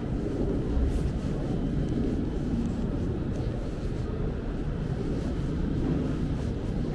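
Steady low rumble of city street ambience, mainly traffic noise.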